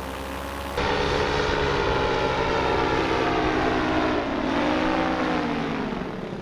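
Paramotor engine and propeller running in flight; its note dips and climbs back up about four to five seconds in.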